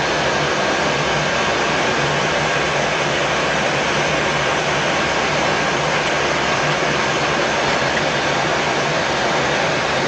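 Steady rushing noise of an aircraft in flight, with a faint steady tone running through it.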